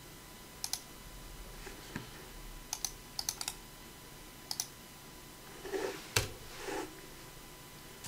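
Sparse typing on a computer keyboard: a handful of sharp key clicks in small clusters, with the loudest click about six seconds in.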